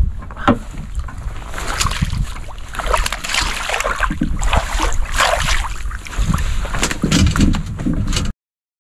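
Close rustling of a jacket and handling of the camera, with an uneven low rumble of wind on the microphone; it cuts off suddenly near the end.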